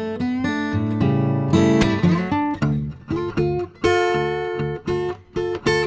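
Background music played on acoustic guitar, a run of plucked notes changing in pitch.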